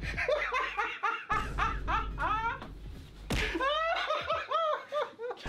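Men laughing hard, in rapid pitched ha-ha pulses: one bout over the first two and a half seconds, then a second starting a little after three seconds.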